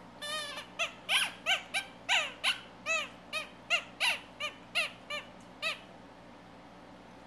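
Sophie la Girafe natural-rubber teether squeaking as a baby chomps and bites on it: a quick run of about fifteen short squeaks, roughly three a second, each rising then falling in pitch, stopping after about five and a half seconds.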